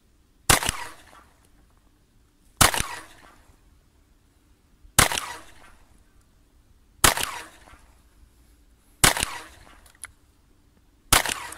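Glock 43 9 mm subcompact pistol firing six slow, aimed shots about two seconds apart, each sharp crack trailing off briefly.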